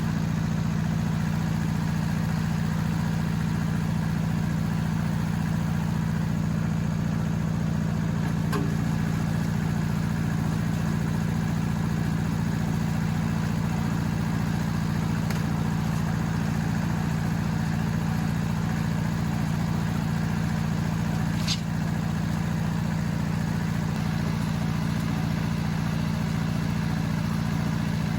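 An engine idling steadily at an even pitch, with one sharp click about three-quarters of the way through.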